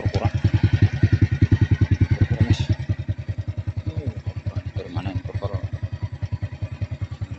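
Motorcycle engine idling, an even, rapid putter of about ten beats a second, a little quieter from about three seconds in.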